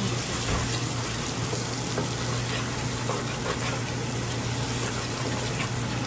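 Sliced red onions frying in hot oil in a nonstick pan, stirred with a spatula: a steady sizzle with small crackles, the start of browning the onions.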